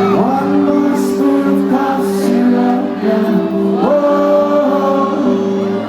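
Live rock band playing, with sung vocals gliding over sustained chords.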